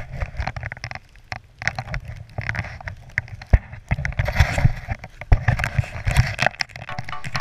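A snowboard riding through deep powder, heard on the rider's body-mounted camera: low rumbling wind buffeting with irregular rustles and knocks of clothing and snow against the camera. Background music fades in near the end.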